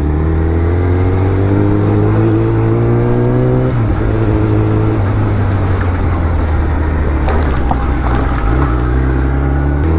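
Superbike engine heard from on the bike, pulling under throttle with its pitch rising steadily, then dropping sharply at a gear change about four seconds in and running on steadily, with wind noise.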